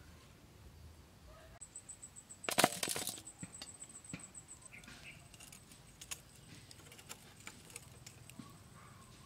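Handling noise: a short clatter of sharp clicks about two and a half seconds in, then scattered light clicks and taps, over a faint steady high-pitched whine.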